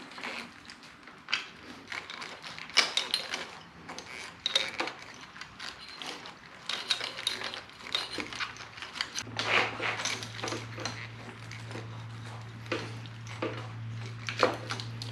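Hands working a motorcycle wiring loom through a metal rally nav tower: irregular small clicks, rattles and light metallic knocks. A steady low hum comes in about nine seconds in.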